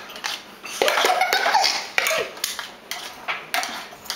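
A spoon clinking and scraping against bowls and dishes in a run of short, irregular knocks, while muffin mixture is spooned out.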